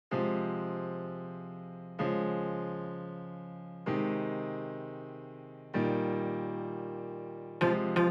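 Background piano music: four sustained chords struck about two seconds apart, each fading away, then quicker notes begin near the end.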